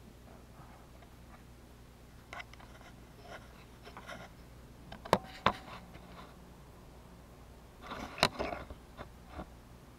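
Handling noises: scattered light clicks, then two sharp knocks about five seconds in and a cluster of knocks and rattles about eight seconds in, over a faint steady low room hum.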